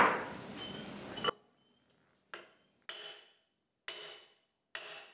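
Hammer blows on a long steel bar with a socket on its end, driven down a Dana 60 axle tube to knock out the inner axle seal: four separate metallic strikes, each ringing briefly, in the second half. A clatter of the bar in the tube comes first.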